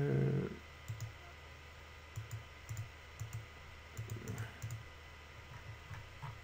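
Faint, irregular clicks from working a computer mouse at the desk, a dozen or so spread over several seconds. A man's held hum trails off in the first half second.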